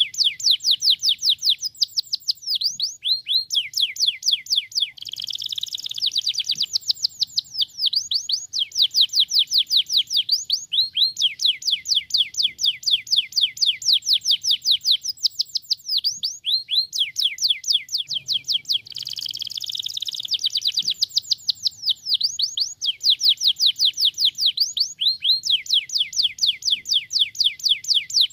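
Domestic canary singing: long runs of rapid trills, each a fast series of sweeping high notes at about six a second, broken twice by a denser, buzzier phrase, about five and nineteen seconds in.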